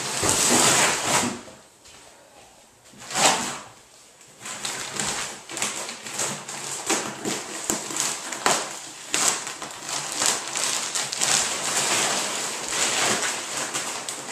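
Thick plastic wrapping of a rolled memory foam mattress rustling and crinkling as it is handled and pulled open, in a run of crackly bursts. The loudest handling comes in the first second or so and again about three seconds in, with quicker, smaller crinkles after that.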